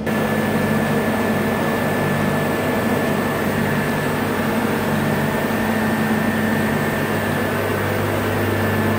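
Steady industrial machinery noise: an even hiss with a thin steady high whine and a low hum, from plant equipment around a steam-and-water sampling panel.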